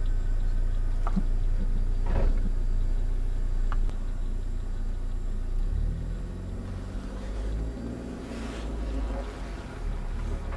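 A car's engine running steadily with a low rumble, heard from inside the cabin. About six seconds in, a humming engine note appears and its pitch shifts. There is a brief knock about two seconds in.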